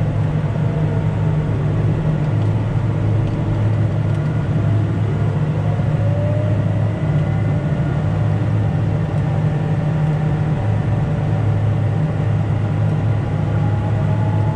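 Deutz-Fahr TTV 7250 tractor and its front-mounted snowblower running steadily under load, heard from inside the cab: a constant low engine hum with a fainter whine that slowly sinks and rises in pitch.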